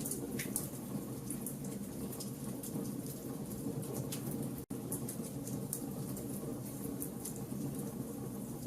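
Wood fire burning in a fireplace: irregular sharp crackles and pops over a steady low rumble, with a momentary dropout to silence a little past halfway.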